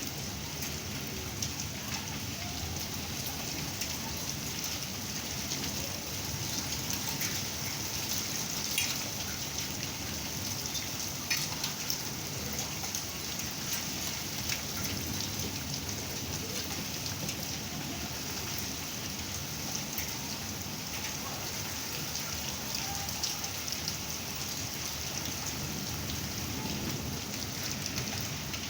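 Heavy rain pouring down steadily, with scattered sharp taps of drops hitting hard surfaces close by.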